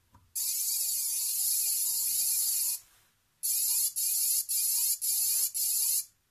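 Racing drone's brushless motors, driven by BLHeli 16.65 ESCs, buzzing out the startup melody selected with Beep Strength 92. It plays as one long warbling note, then five short notes in quick succession.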